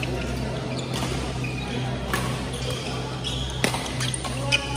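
Badminton racket strikes on a shuttlecock during a rally, several sharp clicks with the two loudest near the end, along with short high squeaks of shoes on the wooden court. A steady low hum runs underneath.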